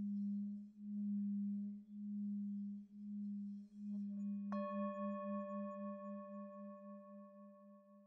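Ambient opening score: a low, wavering drone that pulses about once a second. About four and a half seconds in comes a single struck bell-like tone that rings on and slowly fades.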